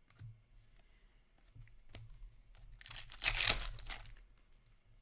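Foil trading-card pack being torn open by hand: one loud crinkly tear lasting about a second, starting near the three-second mark.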